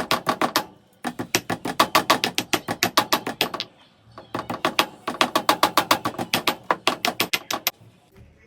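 Rapid pounding with a pestle in a mortar, crushing tea spices: three runs of quick, even strikes, about seven a second, with short breaks about a second in and about four seconds in.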